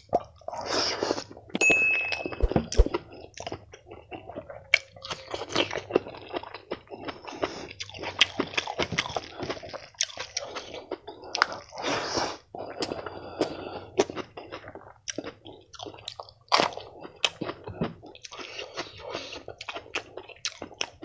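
A person eating up close: irregular chewing and crunching of fried food, with many sharp little clicks and smacks.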